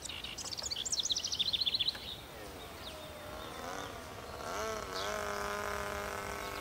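Radio-controlled model biplane's motor buzzing, its pitch sweeping up and down as the plane passes, then holding steadier. It is preceded by a quick run of high chirps falling in pitch over the first two seconds.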